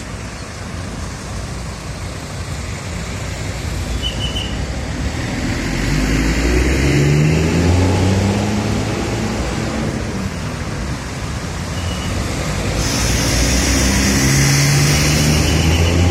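Road traffic with a large vehicle's engine swelling up as it passes, its pitch rising, about halfway through and again near the end. A steady hiss joins in during the second pass.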